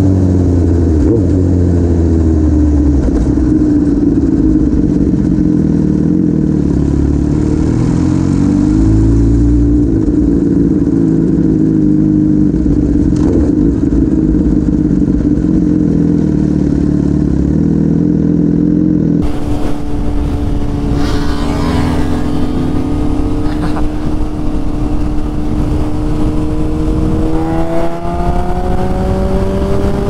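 Suzuki GSX-R1000 K8's inline-four engine through a decatted dual Cobra exhaust, running at fairly steady revs with small throttle changes. It is heard first close to the silencers, then from the rider's helmet. Near the end the revs climb steadily as the bike accelerates.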